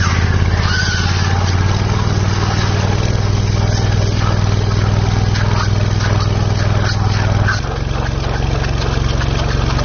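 High-pressure water jet from an underwater hull-cleaning disc spraying and splashing against a ship's hull, with scattered splashes, over a steady engine hum that drops slightly about seven and a half seconds in.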